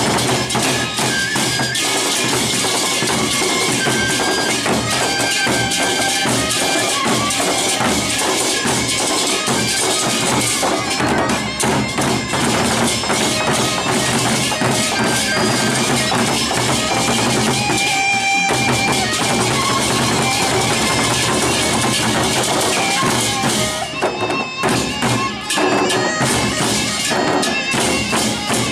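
Sasak gendang belek ensemble playing: large double-headed barrel drums beaten in a dense, fast rhythm with clashing hand cymbals, and a few held higher notes over them.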